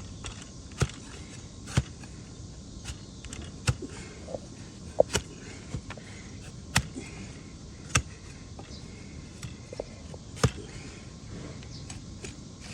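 Sharp cracks of a hoof-trimming blade cutting into a donkey's overgrown hoof, about eight irregular cuts over a low steady background.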